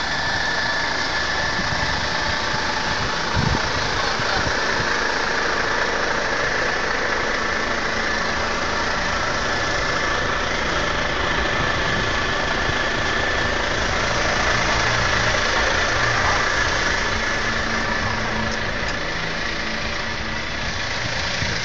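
Heavy truck's diesel engine idling steadily, with a steady high whine over it and a single knock about three and a half seconds in.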